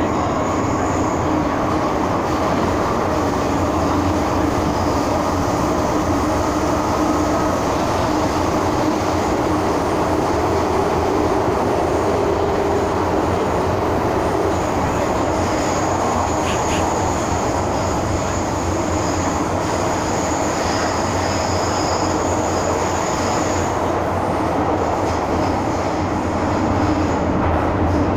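MTR M-Train metro carriage in motion, heard from inside the car: a steady rumble of wheels on rail. A high, thin wheel squeal comes in about halfway through and dies away a few seconds before the end.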